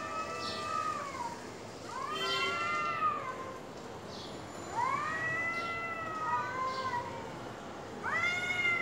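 Two cats in a face-off yowling at each other: long, drawn-out wails that rise and then fall in pitch, one every two to three seconds. This is the threat yowling of a cat standoff before a fight.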